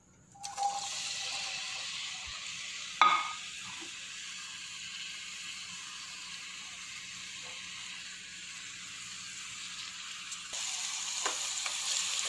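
Julienne-cut onions dropped into hot refined oil in a kadai, sizzling steadily as they start to fry, with one sharp knock about three seconds in. Near the end a spatula stirs them and the sizzle gets louder.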